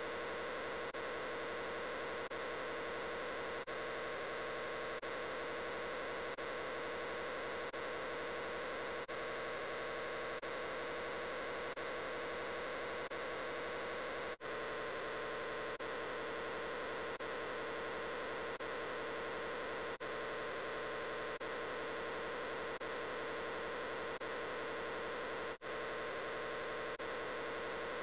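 A steady, dense wall of noise with a hum: the 'I'm Peppa Pig' voice clip layered on itself a great many times, so that no words can be made out. It drops out for an instant about every second and a half.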